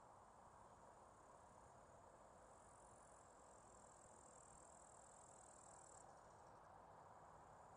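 Faint, steady, high-pitched chirring of crickets over a soft, even hiss; one layer of the chirring stops about six seconds in.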